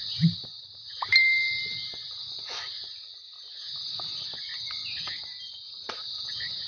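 Steady high-pitched chorus of crickets or similar insects. A low thump sounds just after the start, and about a second in a sharp click is followed by a clear held note lasting about a second.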